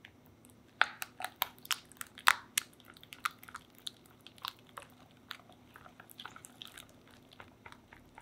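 Silicone-coated whisk beating an egg into cream cheese in a glass mixing bowl: an irregular run of sharp clicks and taps of the whisk against the glass. They start about a second in and are loudest over the next two seconds, then go on softer.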